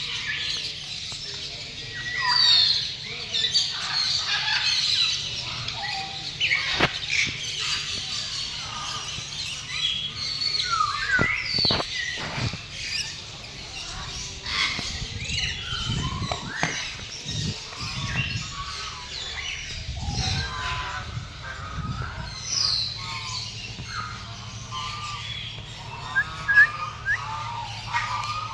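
Many birds chirping together, short rising and falling calls overlapping one another throughout, with a few sharp clicks mixed in.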